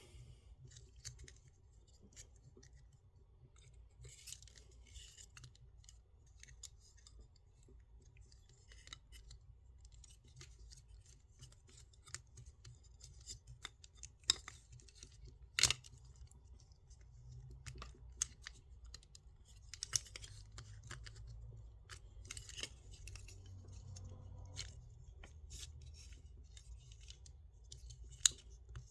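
Plastic Transformers action figure being handled and transformed: scattered small clicks and snaps of its plastic joints and parts, with light rustling in between. The sharpest snap comes about halfway through, another near the end.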